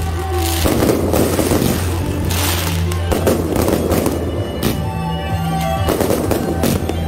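Aerial fireworks bursting and crackling in a dense barrage, one bang after another, with music playing underneath.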